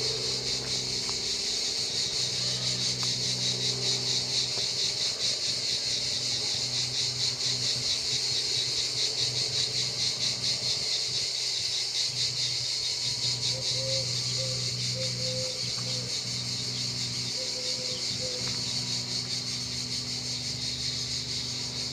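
Cicadas singing in chorus: a steady, high-pitched, rapidly pulsing buzz.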